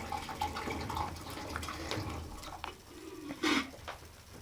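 Sticky glue-and-borax slime being stirred and worked, giving irregular wet squelches and small sticky clicks, with one louder squelch near the end.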